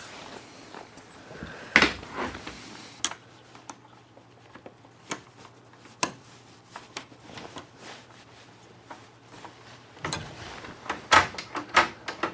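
Scattered knocks, clicks and rubbing from wooden parts of a homemade cat door being handled and fitted on a workbench, with a sharper knock about two seconds in and a quick run of knocks near the end. A faint low steady hum sits underneath.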